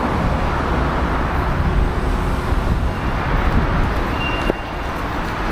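Steady rumble of a moving vehicle, with a short high tone and a click about four and a half seconds in, after which it drops a little.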